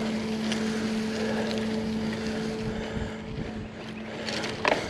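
A steady motor hum holding one pitch, easing off after about three and a half seconds, over a noisy background. A sharp knock comes near the end.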